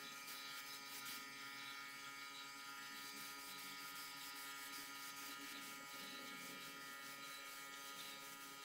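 Air compressor running with a steady faint hum, and the hiss of a compressed-air paint spray gun in use.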